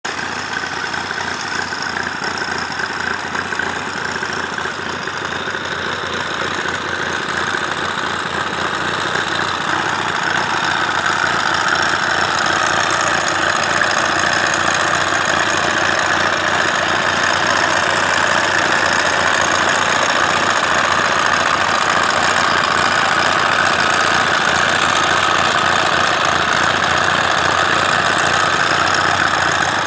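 The 1939 IHC Deering F12 G tractor's four-cylinder engine is running steadily on a test run. It grows louder around ten seconds in and then holds even.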